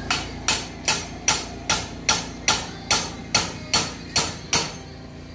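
Hammer striking at a concrete hollow-block wall: about a dozen sharp, even blows, roughly two and a half a second, each ringing briefly, stopping near the end.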